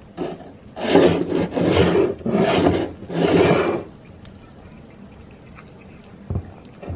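Cat pawing on a wooden floor around its food bowl: four rasping scrapes, each under a second, then a couple of soft low thumps near the end.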